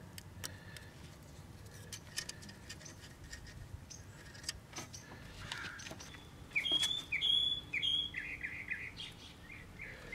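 Scattered light clicks and taps of metal being handled, then, about two-thirds of the way in, a small bird chirping a quick run of short, falling notes.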